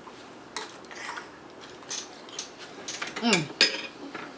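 A spoon clicking and scraping lightly against an ice cream dish, a few separate taps, then a short wordless vocal sound that falls in pitch, with a sharp click about three and a half seconds in.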